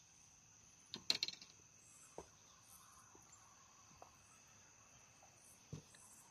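Night insects chirping, a steady high trill with pulsing calls above it, faint throughout. A short cluster of clicks and knocks comes about a second in, with a few single soft knocks later.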